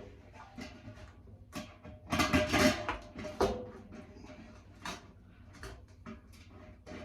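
Irregular clicks and knocks of metal parts and hand tools being handled while a tumble dryer is reassembled, with a louder rattling clatter about two seconds in.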